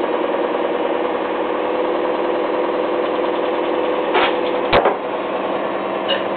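A steady mechanical hum from a small motor, made of several held tones, runs throughout. About four seconds in comes a short noisy burst, then a sharp knock as a mug is set down on a kitchen counter.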